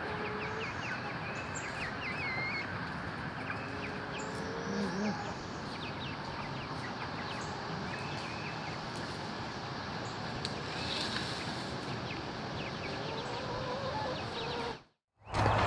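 Chickens, red hens and young chicks, making low clucks and scattered short high peeping chirps over a steady outdoor background hiss. The sound drops out briefly near the end.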